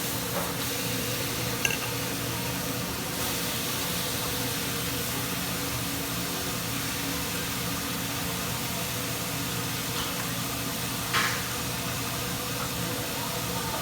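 Steady hiss with a low hum of hibachi restaurant background noise, with a brief clink about two seconds in and another about eleven seconds in.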